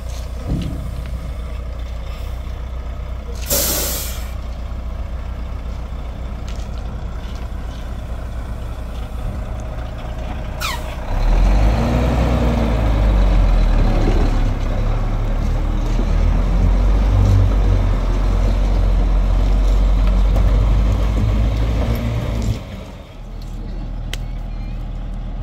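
Dump truck's diesel engine running at idle, with a short hiss of air released about three and a half seconds in. Just before halfway the engine revs up and runs loud for about eleven seconds, then drops back to idle.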